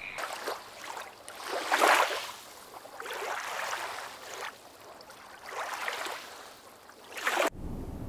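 Water washing and splashing in repeated swells, one every second or two. It cuts off abruptly near the end, giving way to a low steady rumble.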